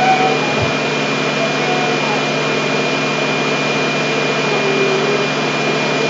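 Upright vacuum cleaner running steadily: a constant motor hum with a thin, steady high whine on top.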